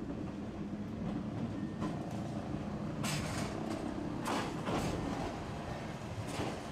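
Tosaden streetcar no. 608 running slowly past close by: a steady low rumble of the tram's motors and wheels on the rails, with several short hisses about halfway through and again near the end.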